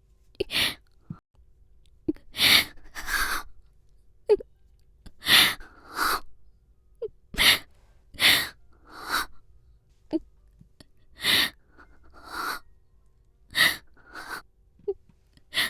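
A woman's voice making a string of short, sharp, breathy bursts, roughly one a second and often two in quick succession: noisy exhaled laughs or sneeze-like huffs.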